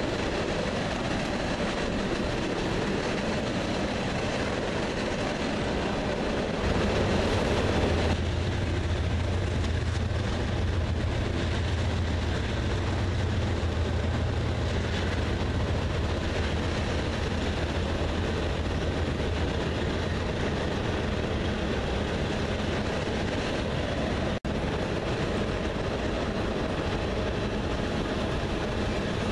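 Freight train rolling across a steel truss bridge with a steady rumble of cars. About a quarter of the way in, the low drone of mid-train diesel locomotives joins it, then fades out a little past the middle.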